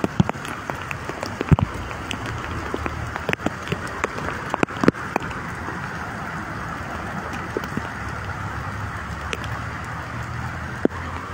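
Rain falling steadily, an even hiss with many sharp drop hits, against a low rumble of traffic on the wet street.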